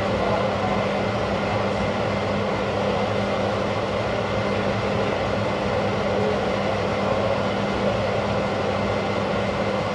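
Steady machine hum with an even rushing noise underneath, unchanging throughout.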